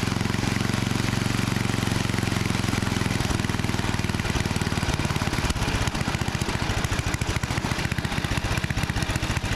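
Craftsman snowblower's small single-cylinder engine running, steady at first, then turning rough and uneven from about three and a half seconds in as it struggles to keep going. The owner puts its failure to stay running down to a fouled carburetor main jet or idle circuit.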